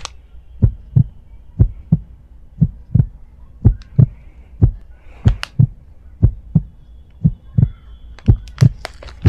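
Heartbeat sound effect: a regular run of low thumps, about two a second, in lub-dub pairs.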